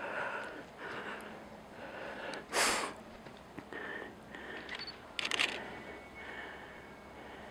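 Heavy, quick breathing of a person out of breath from running, close to the microphone, with a loud sharp breath about two and a half seconds in. A quick cluster of clicks a little after five seconds.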